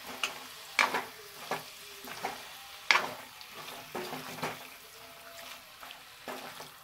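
A metal spatula stirring paneer and peas through a masala in a kadhai, scraping and clicking against the pan every second or so over a faint sizzle of frying.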